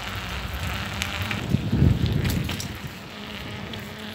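Wind buffeting the microphone of a handheld phone on a moving bicycle, over road and tyre noise, with a stronger gust about two seconds in.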